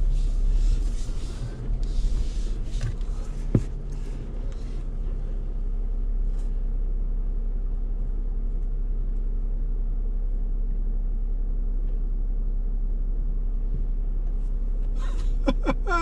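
Jeep Wrangler's 3.6-litre V6 running at a low, steady crawl through a deep water crossing. A rushing hiss fills the first few seconds, with a single knock about three and a half seconds in, then only the engine's even rumble.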